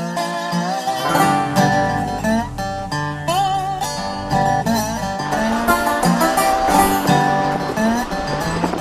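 Background music: plucked guitar with sliding notes, in a country or bluegrass style.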